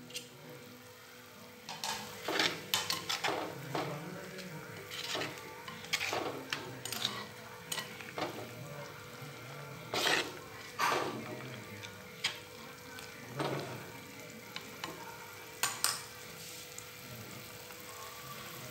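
A spoon stirring soup in an earthenware clay pot: irregular scrapes and knocks of the spoon against the pot over a steady hiss of the soup cooking on the stove.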